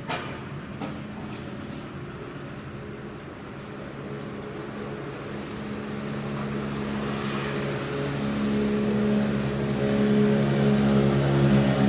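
A large diesel engine running with a steady low hum, growing louder through the second half.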